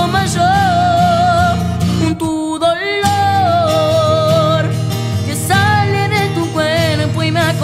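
A young male voice sings a ballad over acoustic guitar, holding long notes with vibrato, with a sliding rise in pitch between phrases about two to three seconds in.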